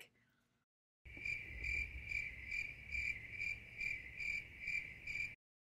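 Cricket chirping sound effect: a steady run of high chirps, about two a second, starting about a second in and cutting off abruptly near the end. It is the comic 'crickets' gag marking an awkward silence.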